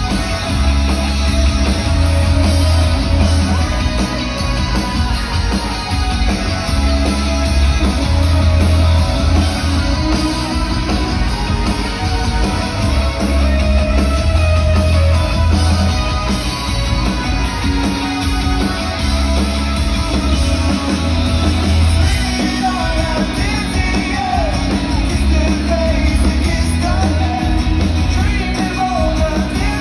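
Live rock band playing amplified drums, bass, guitars and keyboards, with a heavy, steady low end, heard from the audience. A voice sings over it, clearest in the last third.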